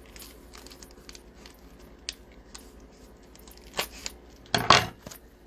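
Rustling and light clicks of a trading-card hobby box and its wrapping being handled, with a short, louder tear about four and a half seconds in.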